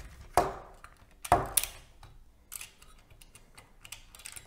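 Plastic LEGO parts of a built X-Wing model clicking and clacking as a hand presses and moves them, with two louder clacks in the first two seconds and a few faint ticks after.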